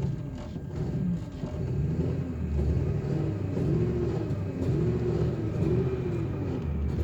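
Ford F-150's Triton V8 running rough at idle, its engine speed surging up and sagging back over and over, close to stalling. The owner puts it down to a misfire, most likely from a failing ignition coil.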